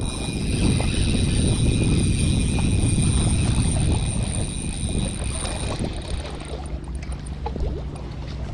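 Wind buffeting the microphone over the sea, with a thin steady high whine through most of it; about six seconds in a low steady hum comes in.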